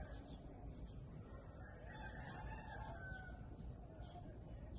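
Small birds chirping faintly outdoors, a run of quick, high, falling chirps starting about two seconds in, over a low steady rumble.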